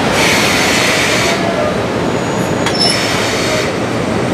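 JR Freight EF65 electric locomotive hauling an EF64 rolls past over a steady rumble. Its steel wheels squeal against the rails in two spells, one at the start and another about three seconds in.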